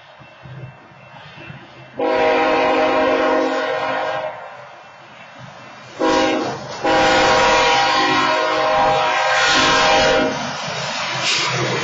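Freight locomotive's multi-tone air horn sounding the grade-crossing signal, because the crossing's wayside horns are disabled: a long blast, a pause, then a short blast run straight into a long one. Near the end the horn stops and the train's low rumble takes over as it reaches the crossing.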